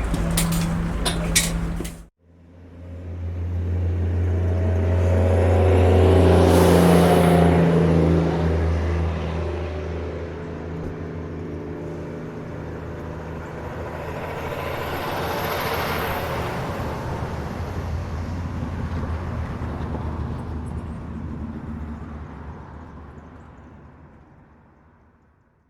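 A large motor vehicle's engine hum with a thin high whine above it, swelling up to a loud peak a few seconds in, easing, swelling again in the middle, then fading away near the end. Before it, a different effect with sharp clicks is cut off suddenly about two seconds in.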